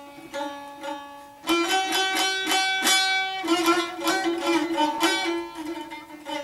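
Solo saz, a long-necked fretted lute, playing a melody. A few soft plucked notes come first, then about a second and a half in come louder, quickly repeated plucks that ring on.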